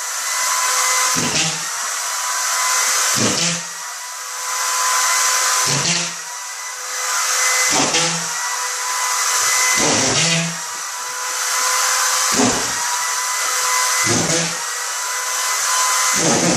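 DeWalt corded drywall screw gun whining at a steady pitch as it free-spins. About every two seconds there is a short burst as a screw is driven home into the drywall, eight screws in a row.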